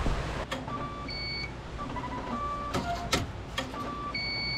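Short electronic beeps at a few different pitches, a higher two-beep pair about a second in and again near the end, among several sharp clicks over a low background hum.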